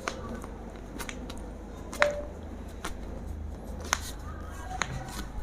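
Short, sharp clicks and pops during a chiropractic ankle and foot adjustment, about one a second. The loudest comes about two seconds in.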